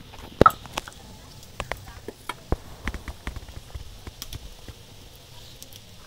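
Scattered light clicks and knocks as ground masoor dal paste is scraped by hand off a stone grinding slab into a stainless steel bowl, the loudest knock about half a second in.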